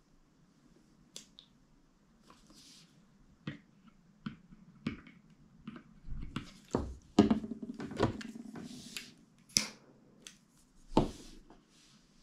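Scattered clicks, taps and light knocks of a small brass alcohol stove and its parts being handled on a table. They come more often and louder in the second half, with the sharpest about seven, nine and a half and eleven seconds in.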